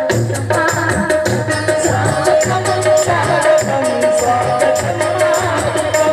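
Indian folk-style welcome song (swagat geet) accompaniment with a fast, even shaker-like rattle, a bass beat about twice a second and a melody line carried over it.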